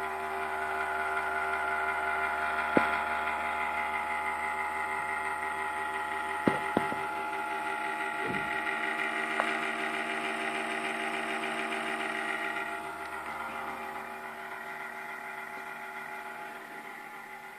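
Corsair CX550M computer power supply running loud, a steady hum made of several fixed tones, the noise the owner finds too loud in this new unit. A few light knocks come through from about three to nine seconds in, and the hum drops in level about thirteen seconds in.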